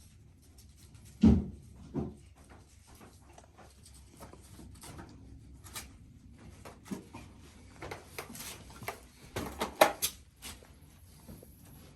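Irregular knocks and clatter of hard objects being handled, with a loud knock about a second in, another just after, and a cluster of knocks about two-thirds of the way through.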